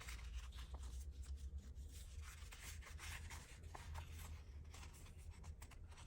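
Faint rustling and light ticks of paper being handled and folded by hand, over a low steady hum.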